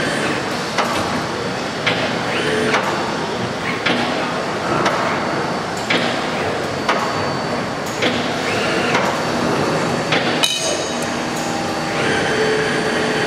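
CNC tube-bending machine running: a steady machine noise with a sharp clack about once a second and short motor whines in between as it bends tube.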